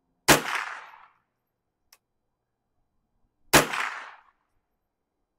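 Two rifle shots about three seconds apart, each a sharp crack followed by a short echo that dies away.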